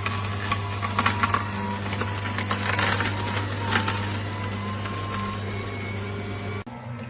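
Electric juicer motor running with a steady low hum, with irregular clicks and crackles over it; the motor cuts off abruptly near the end.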